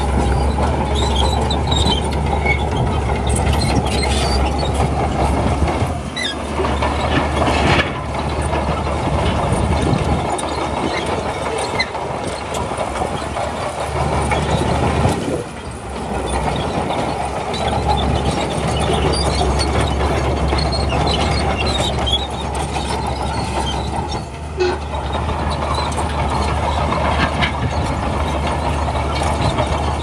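Heavy diesel earthmoving machinery running steadily under load, a constant low engine drone with scattered high metallic squeaks and clanks.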